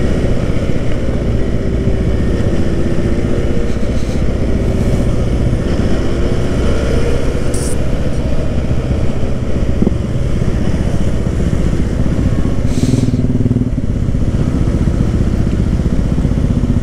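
Benelli 302R parallel-twin motorcycle engine running steadily at road speed, heard from the rider's seat. The engine note wavers up and down a little as the throttle changes, with other motorcycles in the group riding close by.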